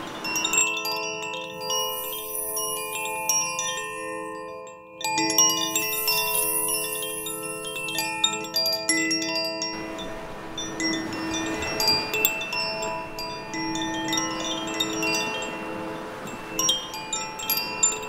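Koshi wind chime (the AIR chime) ringing: its rods strike lightly again and again, leaving many overlapping, sustained bell-like tones. The rushing of waves washing over rocks sits behind the chimes, dropping out from about half a second in and returning after about ten seconds.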